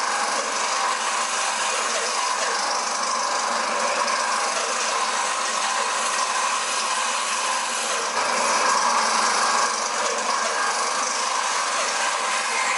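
Bandsaw running steadily and cutting through a wooden pipe bowl blank, trimming it to rough shape; the cut gets a little louder about eight seconds in.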